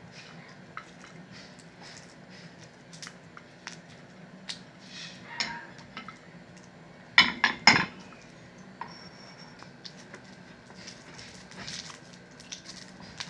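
Scattered light clinks and knocks of kitchen dishes and utensils, with a quick run of three or four sharp clinks a little past the middle.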